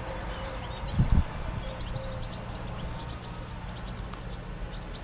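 A small songbird repeating one short, high, falling call note at a steady pace, about once every 0.7 seconds. A low thump about a second in.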